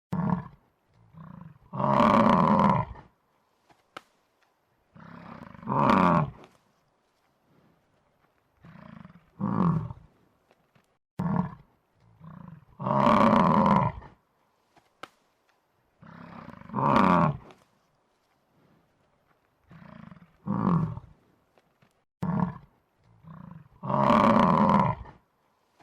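A large animal roaring in a series of loud calls about a second long, each followed by shorter, quieter grunts, with silent gaps between them.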